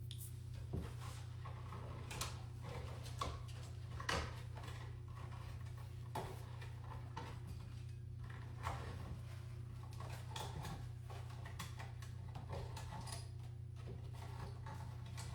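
Scattered light clicks and knocks of hands working at a stuck object, every second or two, over a steady low hum.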